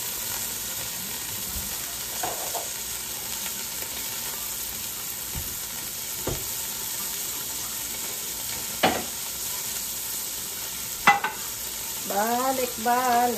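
Tuna pieces frying in oil in a stainless steel pot: a steady sizzle, with two sharp clicks in the last third.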